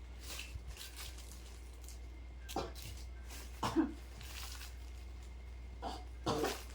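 A man coughing, a few separate coughs with the loudest about halfway and two close together near the end.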